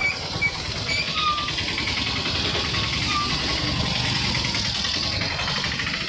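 Motorcycle engine running steadily while riding a rough dirt road, with road and wind noise, and an auto-rickshaw passing close by at the start. A few short high chirps sound in the first few seconds.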